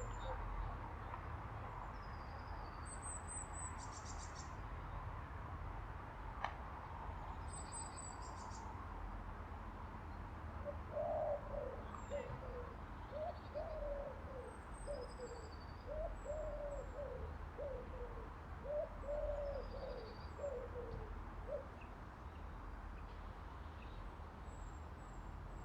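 Small birds giving short, thin, high chirps throughout, and from about eleven seconds in a pigeon cooing for about ten seconds in a run of short, low, falling notes, over a steady low background rumble.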